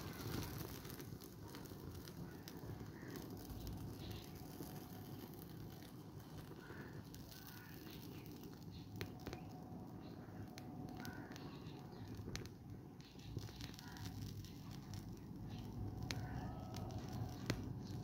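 Small paper fire on the ground burning down, crackling faintly with scattered sharp little pops.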